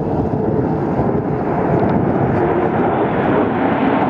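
Military fighter jet's engine noise during a low flyover, a loud steady rush that grows louder and brighter as the jet approaches.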